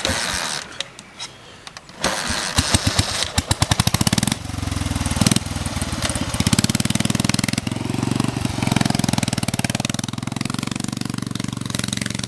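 BMW trial motorcycle engine being started: it fires unevenly about two seconds in, catches about four seconds in, then runs steadily with the revs rising and falling as the bike rides off.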